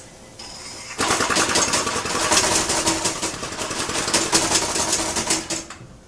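Small two-stroke string-trimmer engine converted to run on steam, spun over by hand at its flywheel and running fast with a rapid, even beat of exhaust puffs. It starts about a second in and runs down and stops shortly before the end.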